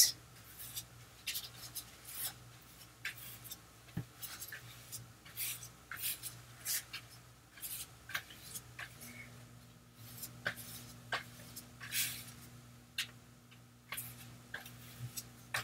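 Damp flat brush spreading gesso across paper: a run of faint, short scratchy swishes, about one or two a second, as it strokes back and forth.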